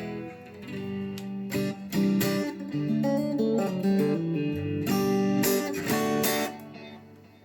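Fender '72 reissue electric guitar, Made in Japan and fitted with US vintage pickups, played through an amp: a run of picked notes and strummed chords that fades away near the end.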